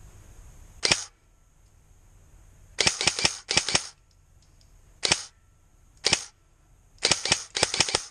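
Airsoft guns firing: sharp cracks, a single shot about a second in, then quick strings of several shots, two lone shots, and another string near the end.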